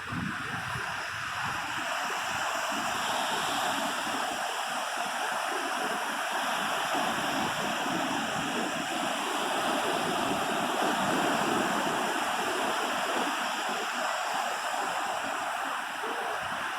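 Rushing water: a steady, continuous hiss of flowing or breaking water, swelling slightly around the middle.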